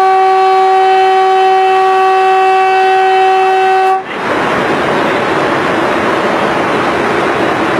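Train horn sounding one long steady blast that stops about four seconds in, followed by the steady rushing noise of the train running.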